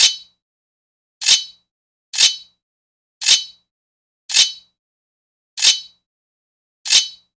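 Sword blade scraping on metal, a series of short separate scrapes about one a second, seven in all, each a brief bright rasp with a faint metallic ring, with silence between.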